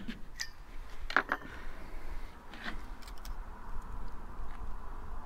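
A few light metallic clinks and knocks of a dial meat thermometer and a meat fork against the roasting pan as a pork roast is lifted out. The loudest clink comes about a second in, with a few smaller ones after.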